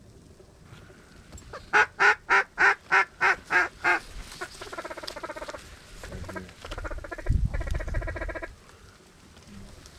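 Duck call blown in a blind: a string of eight loud quacks at about three a second, followed by two bursts of fast chattering feed calls.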